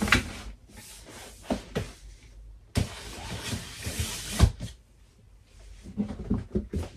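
Storage boxes being handled on a shelf: a few knocks, then a box slid along the shelf with a scraping rush about three seconds in that ends in a bump, and a cluster of small knocks and rustling near the end.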